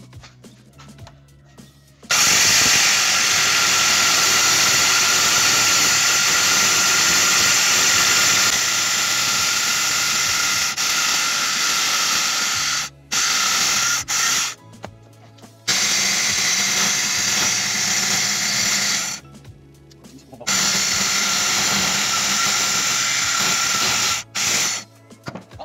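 Womax handheld circular saw cutting through a block of wood. It runs for about ten seconds, then in four shorter runs with brief pauses between them.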